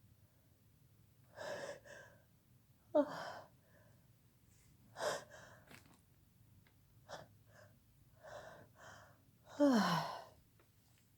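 A person in a sneezing fit: gasping in-breaths and several sharp, voiced sneezes whose pitch drops away, the loudest near the end.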